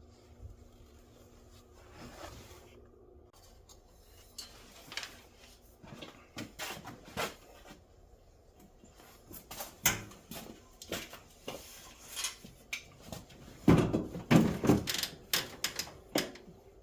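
Tools and metal parts being handled in a workshop: scattered clicks, clanks and knocks that grow busier, with a louder flurry of knocks about fourteen seconds in.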